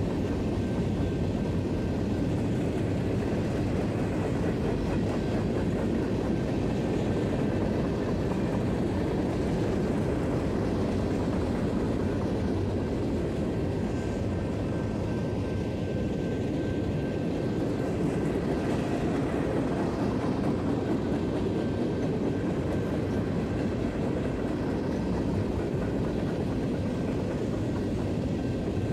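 Freight train cars, covered hoppers and tank cars, rolling past with a steady rumble and clatter of steel wheels on the rails.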